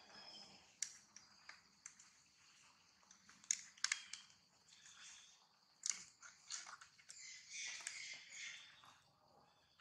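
Faint outdoor ambience of insects buzzing steadily at a high pitch, with scattered soft clicks and rustles that grow busier near the end.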